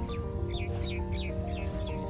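Background music of held notes stepping from pitch to pitch, with a quick series of short, high chirps falling in pitch, about four or five a second, starting about half a second in.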